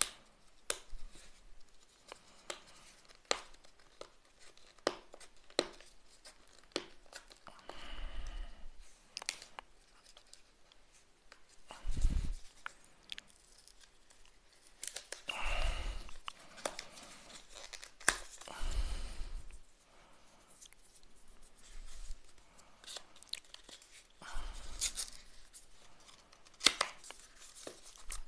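Fingernails picking and scratching at a clear plastic seal sticker on a small cardboard box: scattered sharp clicks and several scratchy peeling sounds of about a second each as the seal lifts off.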